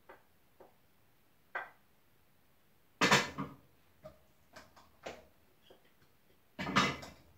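Stainless steel pots and a utensil clattering as food is served out of the pots. A few light clinks come first, then a loud clank about three seconds in, some lighter knocks, and a second loud clatter near the end.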